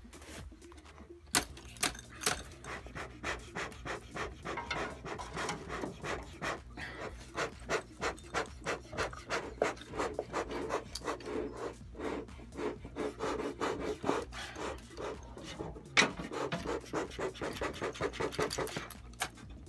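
Beekeeper's smoker bellows squeezed over and over, each squeeze a breathy puff of air driven through the smouldering wood chips to stoke the smoke. The puffing starts about a second in and keeps up quickly and steadily.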